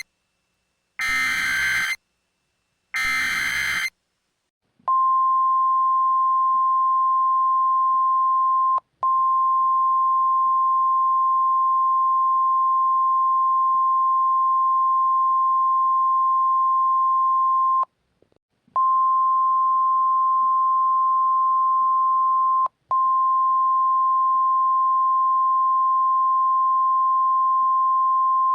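Emergency alert data bursts, two short raspy warbling chirps of the digital SAME header, followed from about five seconds in by the NOAA Weather Radio alert tone. The alert tone is a loud steady single-pitched beep, briefly broken three times, once for nearly a second past the middle.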